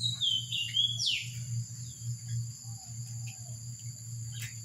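Small birds chirping, several short falling chirps mostly in the first second and a half, over a steady high-pitched insect drone and a low hum.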